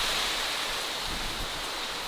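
Steady outdoor nature ambience: an even rushing hiss, brightest in the upper range, with faint low rumbles underneath and no distinct events.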